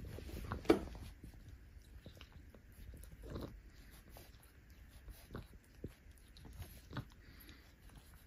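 A cat grooming itself, licking and nibbling its fur close to the microphone. Soft, irregular wet licking and nibbling clicks, the loudest about a second in.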